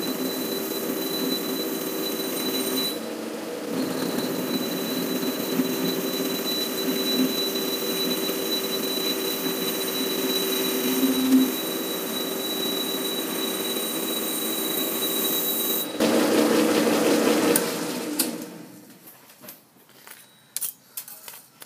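Metal lathe running at about 300 RPM while a high-speed steel plunge-cut tool takes a cut in a steel clutch hub: steady machining noise with a constant high whine over a low hum. About 16 s in it grows louder for a couple of seconds, then the lathe stops about 18 s in, leaving light scrapes and clicks as swarf is brushed off the part.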